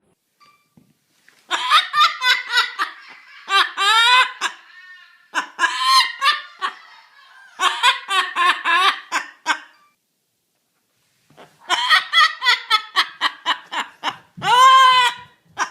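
High-pitched laughter in five spells of rapid, even pulses, about six a second, with short pauses between them.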